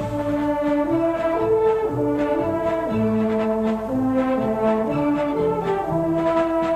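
Brass band music: a melody of held brass notes, each lasting about half a second to a second, over a lower brass line.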